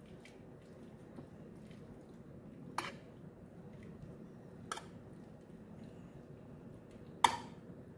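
Metal spoon scooping boiled macaroni from an aluminium pot into a baking dish, with three light clinks of the spoon against the pot and dish; the last clink, near the end, is the loudest.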